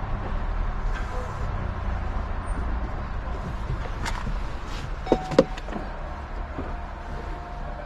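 Steady low rumble of a car, with a few clicks and a short electric whirr about five seconds in, then a faint steady hum near the end.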